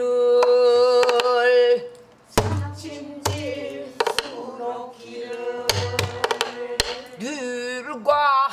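A woman singing pansori while accompanying herself on the buk barrel drum. She holds one long wavering note for about two seconds, then sings shorter phrases over a few low drum thumps and sharp stick clicks.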